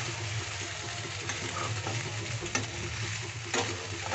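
Macaroni and onions sizzling in hot oil in a metal karahi as a spatula stirs them, with about four light clinks of the spatula against the pan, roughly a second apart.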